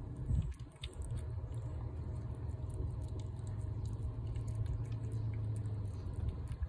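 Cat eating wet food from a plate: small, quick, wet clicks of chewing and licking, over a steady low rumble.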